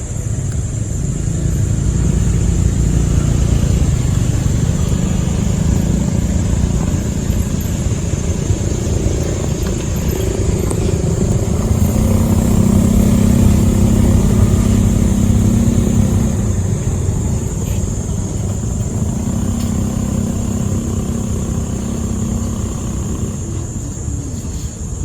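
A motor vehicle engine running, its pitch shifting up and down over a low rumble, loudest about halfway through.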